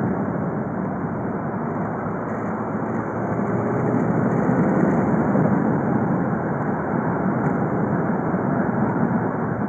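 VW Golf V 2.0 TDI (BKD) four-cylinder turbodiesel running while the car drives along at a steady pace, its engine and road noise swelling slightly in the middle.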